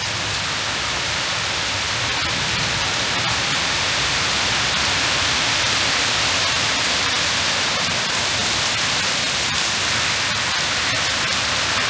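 Heavy rain pouring down in a thunderstorm: a steady hiss with faint scattered drop ticks.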